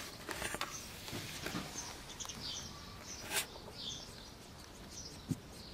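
Faint, scattered bird chirps in the background, with a few soft clicks and rustles in the grass.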